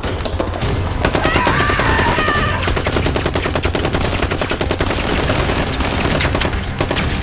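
Rapid machine-gun-style fire: a dense run of sharp shots, many a second, with barely a pause.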